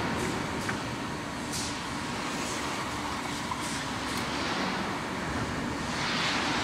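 WMW Fritz Heckert SAXW 630 cylindrical grinding machine running, a steady mechanical hum and hiss with a few faint short ticks.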